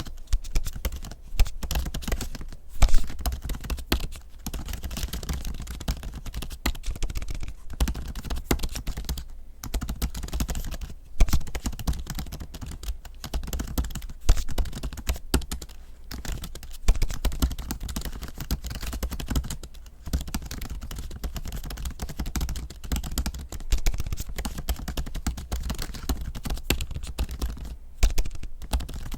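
Continuous fast typing on an M1 MacBook Pro's scissor-switch keyboard covered with a keyboard skin. It is a dense run of key clicks with a few brief pauses.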